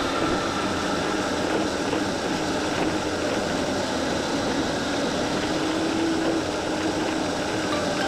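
Kyosho Trail King 1/12 RC tracked snow vehicle running through snow, heard from its onboard camera: a steady, noisy whirr of the electric motor, gears and tracks, with a faint whine that rises slightly around the middle.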